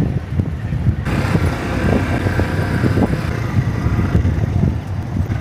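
A motor vehicle running, a steady low rumble.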